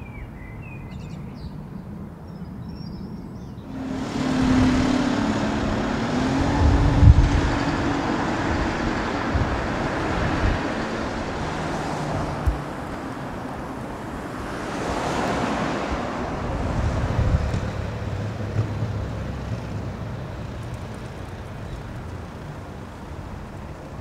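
Street traffic: a motor vehicle passes, its engine note rising as it goes, loudest about seven seconds in, with another vehicle passing around fifteen seconds in, over a steady low road rumble.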